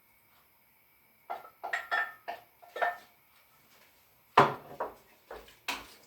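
Kitchen utensils and a cooking pot knocking and clinking: a quick run of light metallic clinks, then a few heavier knocks, the loudest about four and a half seconds in.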